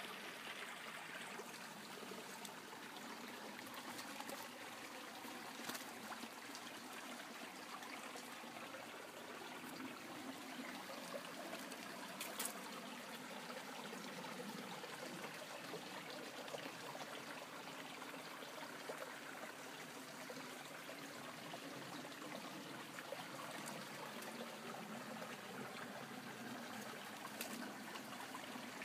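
Small mountain stream trickling over rocks, a steady faint wash of running water, with a few light clicks.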